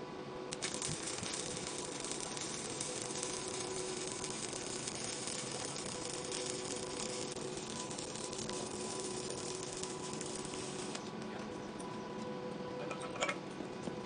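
Stick (SMAW) welding arc crackling steadily as a rod burns. The crackle thins out near the end, with a sharp click shortly after.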